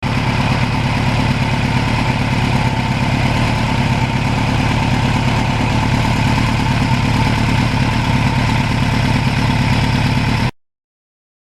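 Kawasaki Ninja GPX750R's inline-four engine running steadily through a Norton muffler, holding an even note, then cutting off abruptly near the end.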